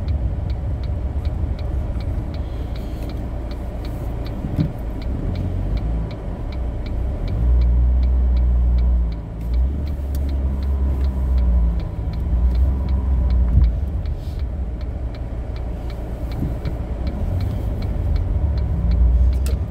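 Road noise heard inside a moving car: a low engine and tyre rumble that swells a couple of times in the middle, with a light, even ticking of about four clicks a second through much of it.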